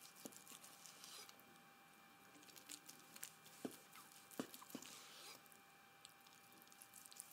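Faint sounds of a knife slicing through a roasted turkey breast, a soft scraping as the blade draws through the meat and skin, with a few light knocks of the blade on the cutting board, the loudest about three and a half and four and a half seconds in.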